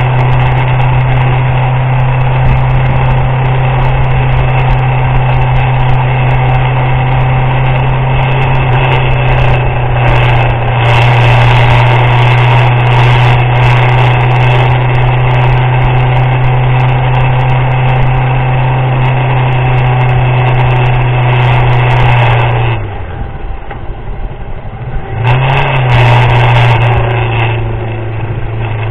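Motorcycle engine running steadily under way. For a couple of seconds late on, the engine note falls away as the throttle eases off, then rises again.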